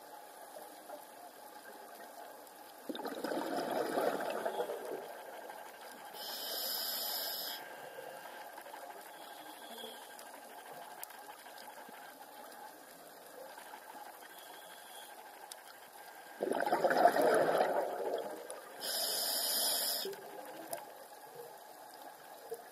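Scuba diver breathing underwater through a regulator: twice, a rushing, bubbling burst of exhaled bubbles followed by a short high hiss from the regulator, about three seconds in and again after about sixteen seconds, over a faint steady underwater hiss.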